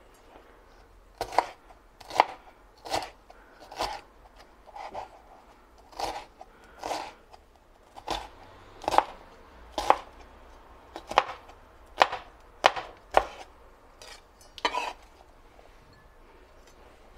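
Chef's knife chopping a green bell pepper on a hard cutting board: sharp knocks of the blade hitting the board, roughly one a second and unevenly spaced. The chopping stops a couple of seconds before the end.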